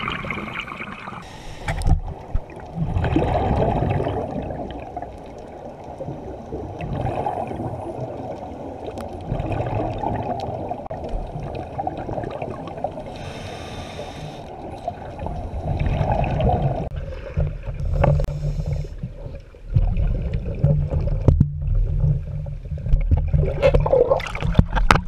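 Muffled underwater sound through a camera housing: scuba regulator breathing, with a swell of exhaled bubbles every few seconds. From about twenty seconds in, a heavier low rumble of water moving in the shallows.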